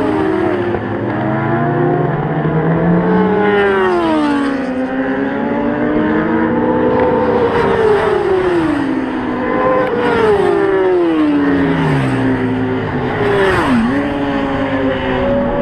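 Several supersport racing motorcycles running flat out along the straight, their engines overlapping at high revs. The pitch climbs as they accelerate, then drops steeply several times as the bikes pass.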